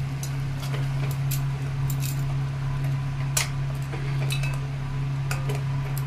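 Steel spoon clinking and scraping against a stainless steel bowl while fried gujiyas are turned in sugar syrup, a few light clicks scattered through, over a steady low hum.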